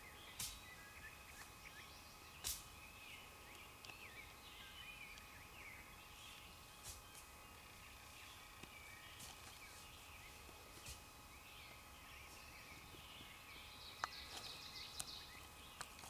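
Quiet spring woodland ambience: faint scattered bird calls over a steady low hiss, broken by a few short sharp clicks, the loudest about half a second and two and a half seconds in and near the end.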